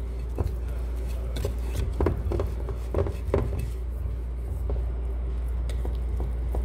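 Wire whisk stirring thick pancake batter in a bowl, with irregular clicks and knocks of the whisk against the bowl, most of them in the first half.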